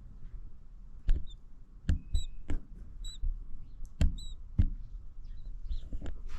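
Short high peeps of newborn baby birds in the nest, about half a dozen, scattered between several sharp knocks or taps that are louder than the peeps.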